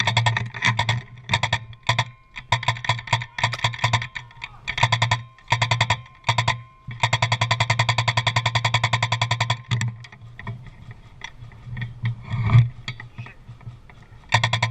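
Airsoft electric gun firing on full auto in repeated bursts of rapid, evenly spaced shots over its gearbox motor's hum, one burst running nearly three seconds, then scattered single shots near the end.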